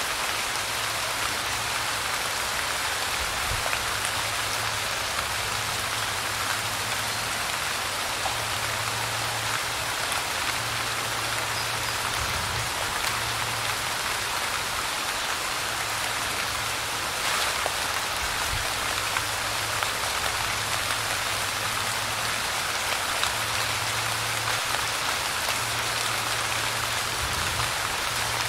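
Light rain falling steadily: a dense, even patter of drops with no let-up.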